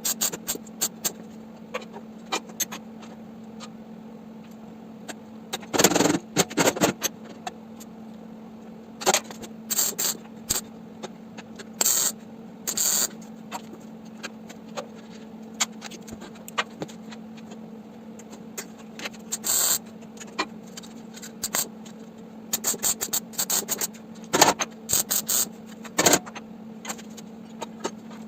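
Semi-automatic welder tack-welding car body steel in short crackling bursts of under a second to about a second, over a steady low hum.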